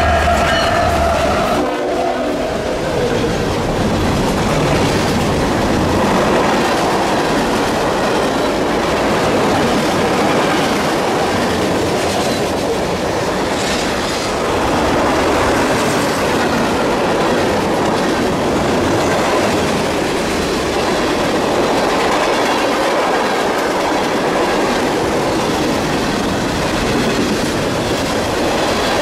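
CSX mixed freight train passing at speed: a horn blast from the lead GE ES44AH locomotive and the deep diesel rumble cut off about a second and a half in as the locomotives go by. After that, autoracks and tank cars roll past with a steady rumble and wheel clatter.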